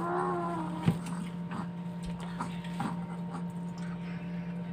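Mukbang eating sounds while shrimp are peeled and eaten: a short hummed vocal sound at the start, a sharp knock about a second in, then faint scattered clicks and mouth sounds, over a steady low hum.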